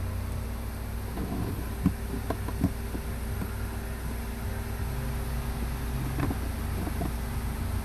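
A steady low hum, with a few light clicks and knocks of the plastic glove box stops being squeezed and worked past the dash opening.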